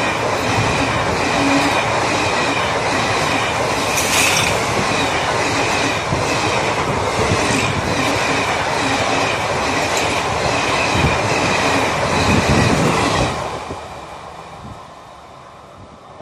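Express passenger train coaches running through a station at speed without stopping: a loud rushing rumble of wheels on rail with scattered knocks and a thin high tone above it. About thirteen seconds in, the last coach passes and the sound falls away to a faint rumble as the train draws off.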